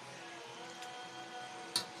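Faint background music with held tones, and a short sharp scrape near the end.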